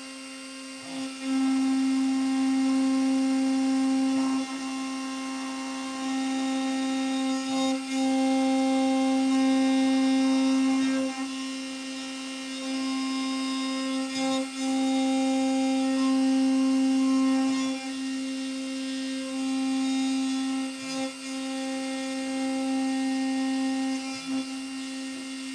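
CNC spindle whining at a steady pitch as a straight flank cutter mills a Delrin (acetal) gear blank. The sound gets louder for stretches of a few seconds and drops back between them.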